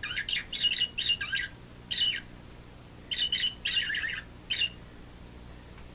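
Motion-activated electronic toy parakeet chirping in a series of short, high, trilling bursts in four or five groups, set off by someone moving close to its sensor; it falls silent a little before the end.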